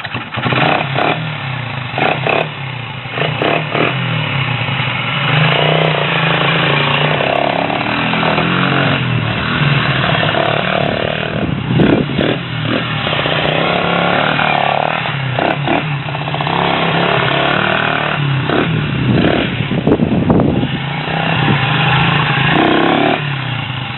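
A 1977 Honda XL75's small single-cylinder four-stroke engine running, its revs rising and falling as the bike is ridden. It is running again after 15 years sitting out in the weather.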